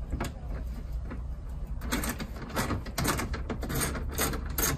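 Ratchet wrench and socket clicking and knocking as bolts are worked loose from a van's seat-base battery cover, in short irregular bursts starting about two seconds in.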